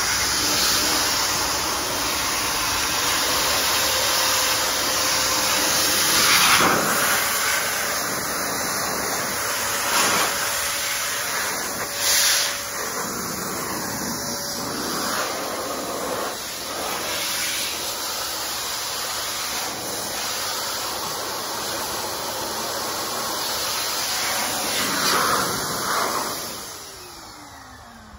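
Handheld electric air blower running at full blast, aimed into a car's front grille openings to blow out dirt. It is loud, with a few brief surges. Near the end it is switched off and its whine falls away as the motor winds down.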